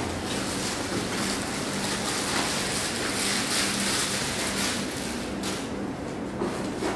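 Plastic wrapping and cardboard rustling and crinkling while packed items are pulled out of a cardboard box, with a faint steady low hum underneath.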